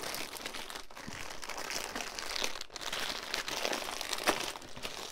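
Packaging crinkling and rustling in the hands, with small clicks, as a craft kit is packed back up.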